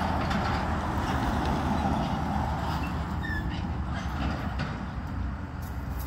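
A car driving past on the road, its tyre and engine noise fading over the first few seconds, over a steady low rumble of a diesel excavator working.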